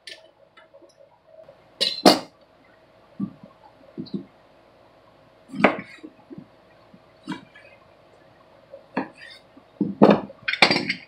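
Kitchen knife knocking against a wooden cutting board as limes are cut into wedges: a few separate sharp knocks and clinks, the loudest about two seconds in and a quick cluster near the end.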